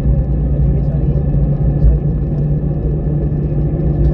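Airbus airliner running, a steady low rumble with a constant hum.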